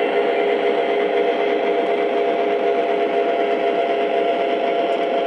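Lionel Southern Pacific diesel switcher model locomotive running along its track with a boxcar. It gives a steady mechanical drone with a few held tones over a hiss.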